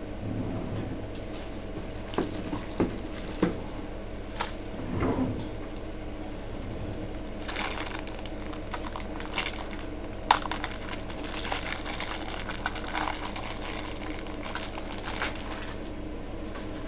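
Small clicks and crackly rustling of trading cards and plastic being handled over a steady low room hum, busier in the second half.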